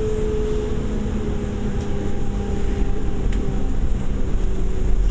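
Bus engine and drivetrain running on the move: a steady drone with a faint held whine over it.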